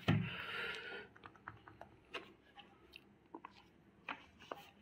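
Buttons of a handheld scientific calculator being pressed: a run of faint, irregularly spaced clicks, after a short rustle in the first second.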